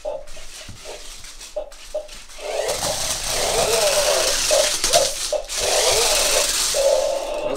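Toy RC stunt car's electric motors whining and its gears rattling as it drives, the whine wavering in pitch as it speeds up and turns. About two and a half seconds in it gets louder, with a broad rattling hiss.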